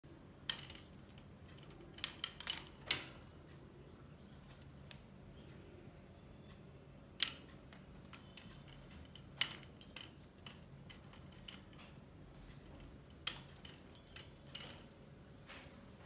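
Scattered sharp clicks and clacks of a wooden clothespin against a metal perch rim as a budgerigar handles it, the loudest a quick cluster about two to three seconds in.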